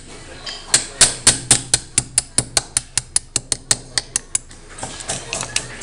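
Small steel hammer tapping a pin punch to drive a pin out of a Grand Power X-Calibur pistol's polymer frame: a quick run of about seventeen sharp metal-on-metal taps, roughly four to five a second, followed by a few fainter knocks near the end.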